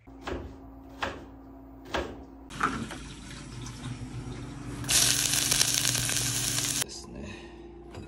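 Kitchen tap running into a stainless steel sink as a vegetable is rinsed. The water gets much louder for about two seconds around the middle, then is shut off. A few knocks come before it, over a steady low hum.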